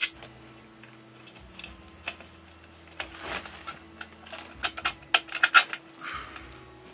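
Light clicks and metallic clinks of a scooter's back wheel, axle and spacers being handled and fitted against the frame. The clicks are sparse at first and get busier, with several sharp ones about four to six seconds in.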